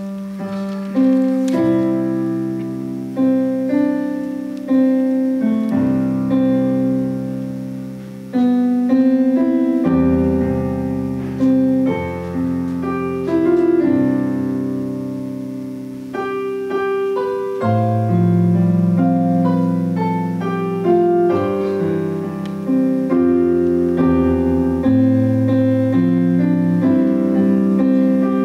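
Digital stage piano playing a slow solo passage of chords and melody, each struck note dying away, as the introduction to a choir piece.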